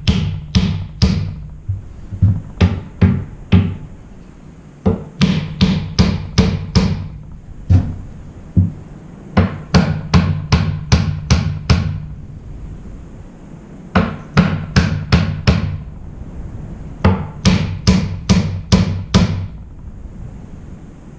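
Runs of sharp hammer blows, about three a second in groups of four to eight with short pauses between, over background music.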